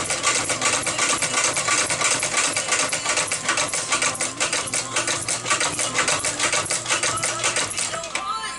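Shoe sewing machine stitching at a fast, even rate, a rapid run of mechanical clicks, stopping just before the end.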